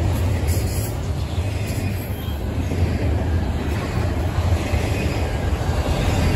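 Intermodal freight train's cars rolling past, a steady low rumble of wheels on the rails.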